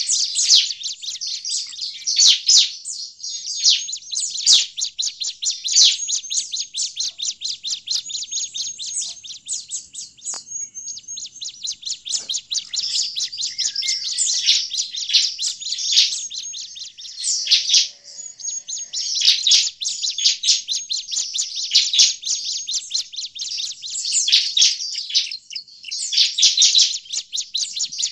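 Bar-winged prinia (ciblek) calling noisily: a fast, nearly unbroken run of high chips and trills, with short breaks about ten and eighteen seconds in. This is the busy, agitated calling that trappers use as a lure for ciblek.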